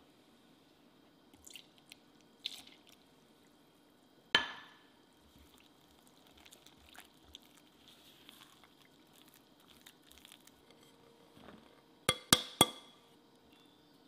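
Cake batter being folded in a glass mixing bowl with a spatula: faint scraping, a sharp glass clink about four seconds in, and three quick clinks near the end.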